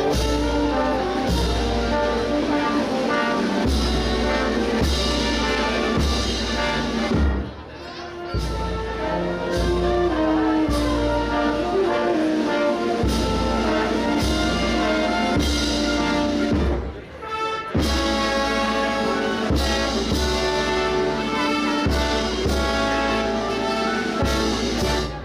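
Brass band playing a Holy Week procession march: trumpets and trombones over a steady bass drum beat, with two short breaks in the phrase.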